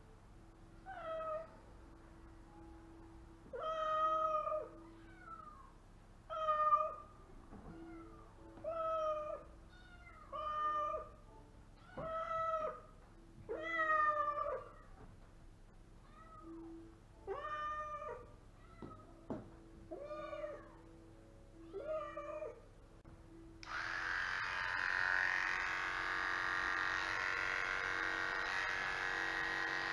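A cat meowing about a dozen times, each meow rising and falling in pitch. About 24 seconds in, an electric hair clipper starts and runs steadily, clipping the fur off the cat's belly.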